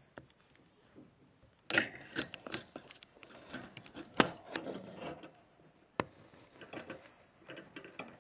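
Irregular rustling and light sharp clicks in shredded paper bedding inside a small mouse cage, beginning about two seconds in, with a couple of louder clicks around the middle.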